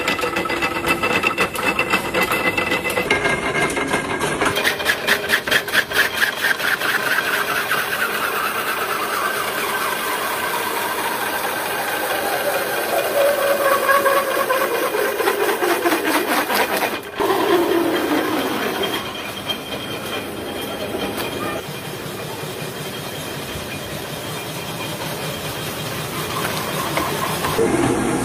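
Wood-working machinery in a matchstick factory: a rotary veneer-peeling lathe turning a log and peeling off a thin continuous sheet of veneer, with a fast steady mechanical clatter. A whine slides slowly down in pitch over about ten seconds, and the sound changes abruptly several times.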